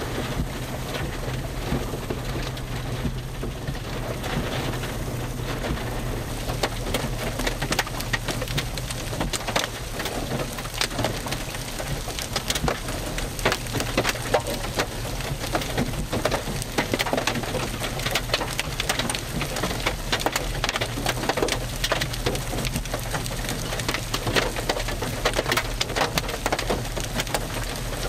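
Heavy rain mixed with hail: a dense hiss of falling rain with many sharp clicks of hailstones striking, more of them from about ten seconds in.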